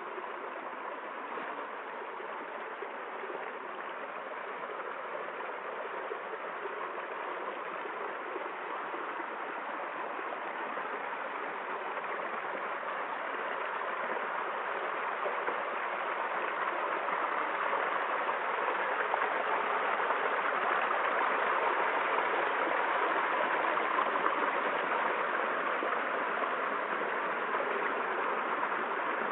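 Rushing water, a steady even wash, slowly growing louder through the middle and then holding.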